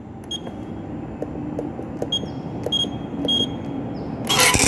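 Short high key beeps from a Juki LK-1900-series button-sewing machine's control panel as its keys are pressed, about five in all, over a low steady hum. Near the end comes a brief loud burst of machine noise.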